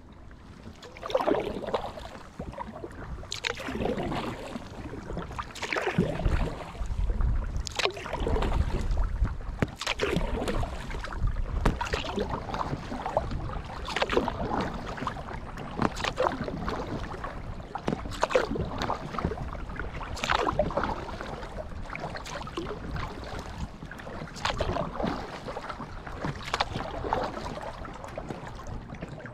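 Kayak paddle blades dipping and pulling through the water beside an inflatable kayak, a splashy stroke about every two seconds in a steady paddling rhythm.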